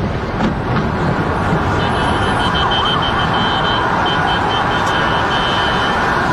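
Emergency sirens and a car alarm sounding over a loud, steady wash of street noise, with a pulsing high alarm tone starting about two seconds in.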